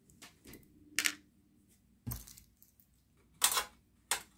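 Metal clinks and rattles from hands handling the CRT monitor's perforated sheet-metal shield: a few separate sharp knocks, the loudest about three and a half seconds in.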